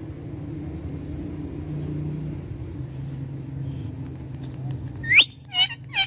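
Indian ringneck parakeet giving two loud, sharp squawks that rise steeply in pitch, about five seconds in, over a steady low rumble.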